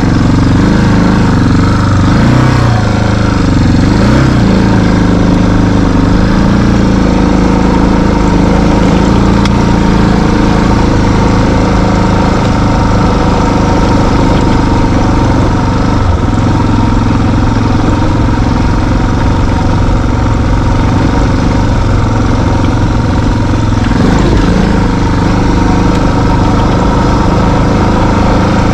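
Engine of a small off-road vehicle running steadily while riding a gravel track, its pitch dipping and rising briefly a few seconds in and again near the end.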